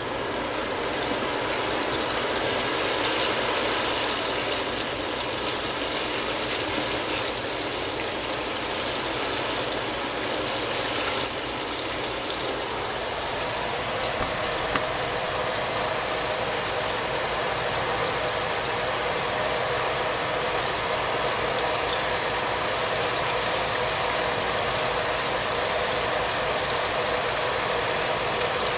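Breaded mullet deep-frying in a pot of vegetable oil, the oil sizzling and bubbling steadily, with a brief knock about eleven seconds in.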